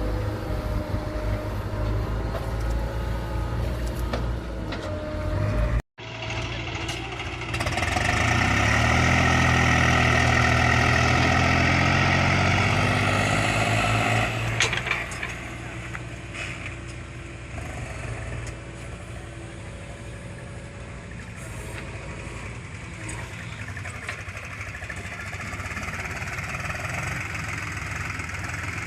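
Diesel engine of heavy earth-moving machinery running, with a sudden break about six seconds in. From about eight to fourteen seconds it runs louder under load with a high whine, then settles back to a quieter, steady running.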